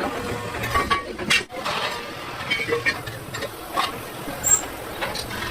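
Workshop noise: irregular metal clinks and knocks over a steady background hum.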